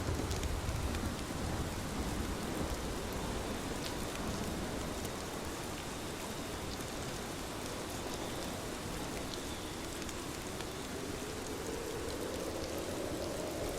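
Steady rain falling, an even hiss with scattered sharp drop ticks. A low rumble fades away in the first second.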